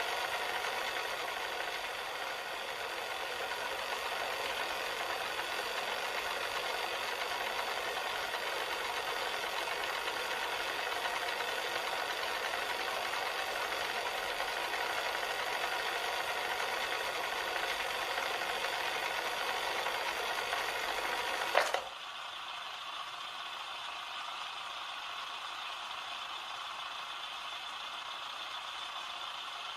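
Cassette player's tape mechanism running with a steady mechanical whir. About three quarters of the way through a sharp click, as of a transport key or mechanism changing, cuts it to a quieter steady hum that runs on.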